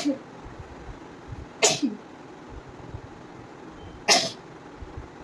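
A person sneezing three times, roughly two seconds apart, each a sharp burst with a short falling tail. The sneezes are forced, brought on deliberately with an irritant.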